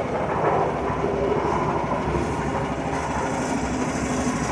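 The concrete mixer's small gasoline engine runs steadily at idle. It is running again after sitting unstarted for 10 to 15 years.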